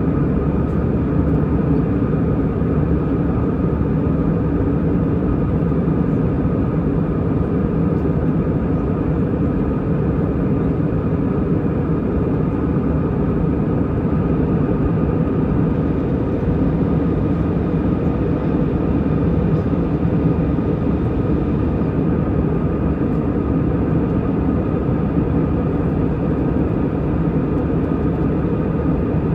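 Airbus A320 cabin noise heard from a seat inside: the jet engines and airflow making a loud, steady drone with a constant whine on top. Nothing in it rises, falls or breaks off.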